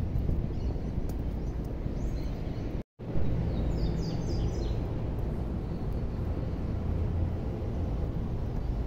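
Outdoor street ambience heard while walking: a steady low rumble with a few high bird chirps in the middle. The sound drops out completely for a moment about three seconds in.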